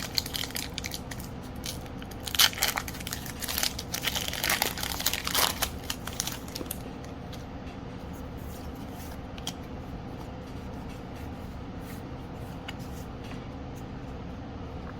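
Foil wrapper of a Pokémon booster pack being torn open and crinkled, with dense sharp crackling for the first six or seven seconds, then only a faint steady hum with a few soft clicks.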